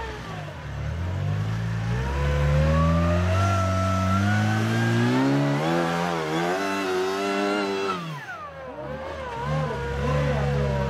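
Rock-crawling buggy's engine revving up in a long rising pull, wavering on and off the throttle at high revs, then dropping off sharply about eight seconds in before picking up again in short blips.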